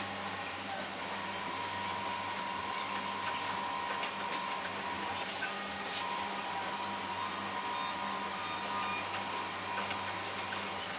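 Xhorse Dolphin XP005 key cutting machine running its key-learning pass, its stepper motors whining steadily as the probe traces the original key. The whine starts about a second in and breaks briefly with a couple of clicks around the middle.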